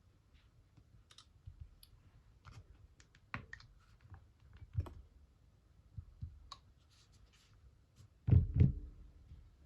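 Handling noise: scattered light clicks and taps, like fingers on phones and phones touching a hard surface. Two heavier knocks come about eight seconds in.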